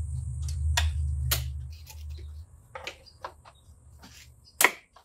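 Spanner working the 10mm bolts on a turbo-to-downpipe flange, giving a scatter of sharp metallic clicks, the loudest near the end. A low hum runs over the first two and a half seconds.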